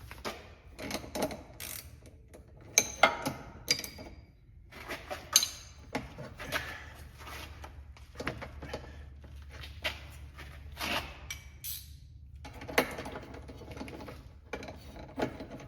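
Ratchet clicking in irregular runs of strokes as it turns the press tool's bolt, drawing a steering rack bushing into the rack bore, with rasping from the bushing being forced in. The bushing is going in hard, which the installer takes for it being cut up.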